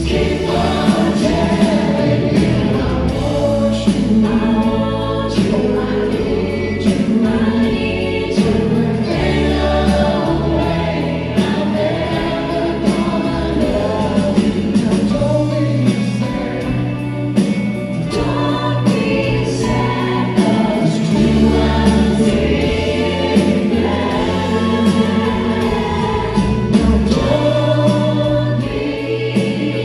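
Live rock band playing a slow song with sung vocals and backing harmonies over electric bass, heard from the audience.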